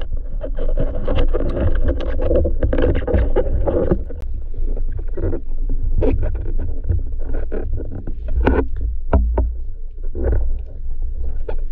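Underwater noise picked up by a diver's action camera during spearfishing: a steady low water rumble with a dense crackle for the first few seconds, then scattered sharp clicks and knocks.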